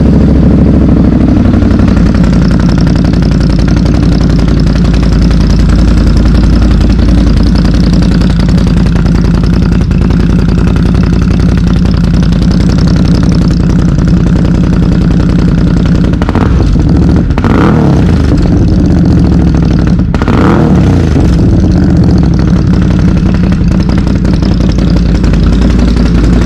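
2020 Can-Am Outlander XMR 850's Rotax V-twin running loud through a freshly fitted Looney Tune slip-on exhaust. It settles from just after start-up into a steady idle, with three short throttle blips about two-thirds of the way through.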